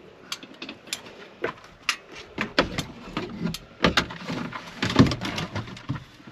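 A folded Hityway BK6 e-bike being lifted and loaded into a vehicle's cargo area: irregular metallic clicks, knocks and rattles of the bike's frame and parts, several a second.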